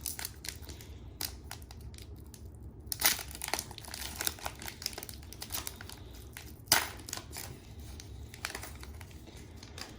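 Foil Pokémon card booster pack wrapper crinkling and crackling as it is handled and torn open by hand, with louder crackles about three seconds in and again near seven seconds.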